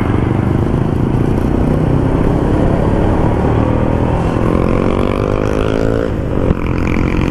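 Yamaha LC135 underbone motorcycle's single-cylinder engine running on the move over a steady rush of noise. About four seconds in, the engine note rises as it accelerates, then drops off sharply about six and a half seconds in.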